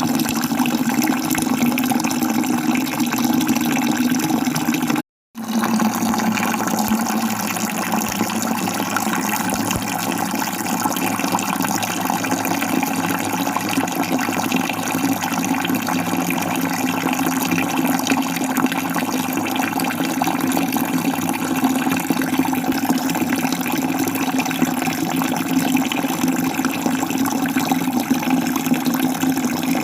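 Waterfall: a steady, full rush of falling water. It cuts out completely for a split second about five seconds in, then resumes unchanged.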